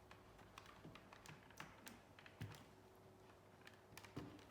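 Faint, irregular plastic clicks and taps as hands work at a laptop's loosened palm rest to get underneath it.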